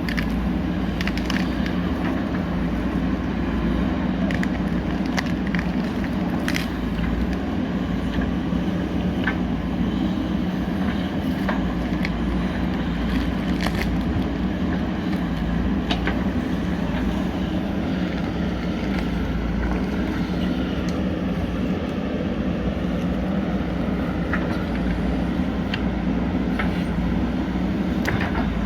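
JCB 3DX backhoe loader's diesel engine running steadily under work, with scattered sharp knocks over it.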